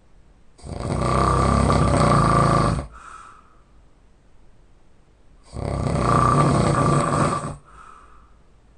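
A man snoring loudly: two long snores of about two seconds each, about five seconds apart. Each is followed by a short, softer breath.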